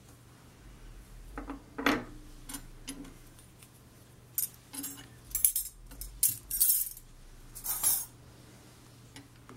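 Small metal Greist sewing-machine attachment parts being handled and set down on the sewing machine bed and wooden cabinet: a string of light metal clicks and clinks, busiest in the second half.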